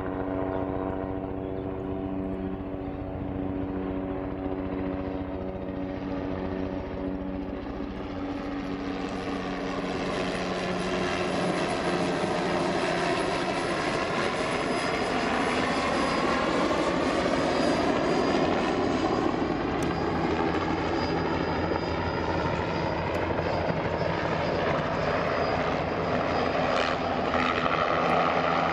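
Small turbine helicopter flying in and coming down to a low hover, with the rotor chop and a thin high turbine whine. It grows louder from about a third of the way in as it draws near.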